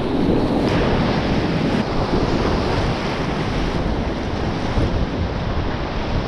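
Whitewater rapids rushing and churning around a kayak, a loud, steady noise heard up close, with wind buffeting the microphone.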